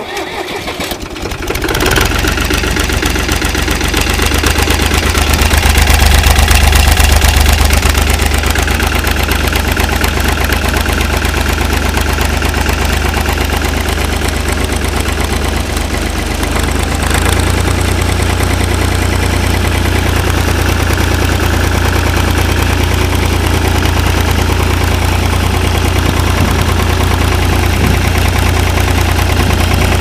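1974 Long 350 diesel tractor engine cold-starting. It cranks briefly, catches about two seconds in and runs loudly, then its note changes about halfway through when the hand throttle is moved, and it runs steadily at about 1,400 rpm.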